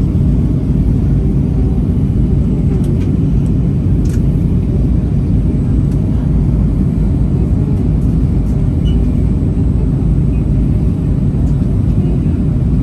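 Steady low rumble of an Airbus A320-200's engines and airflow, heard inside the passenger cabin, with a few faint clicks.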